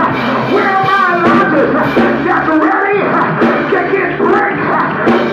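Live church music with a voice singing or chanting over sustained low instrumental notes.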